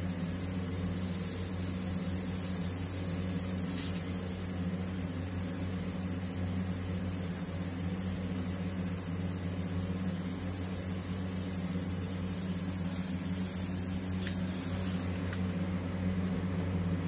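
Airbrush spraying white paint with a steady hiss of air, over a constant low motor hum; the hiss changes about fifteen seconds in, as the airbrush is moved to spray over a stencil.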